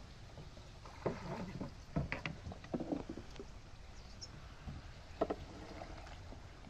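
Wooden boat being poled through shallow, weed-choked floodwater: a handful of short, separate splashes and knocks from the bamboo pole and hull over a faint steady background.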